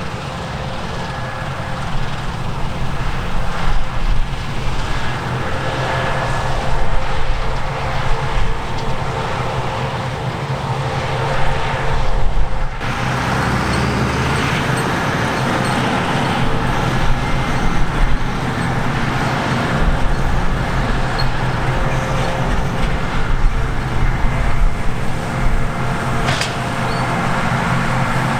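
Diesel engines of harvest machinery, combine harvesters and tractors, running steadily under load with a dense mechanical hum. About halfway through the sound changes abruptly and becomes louder and fuller.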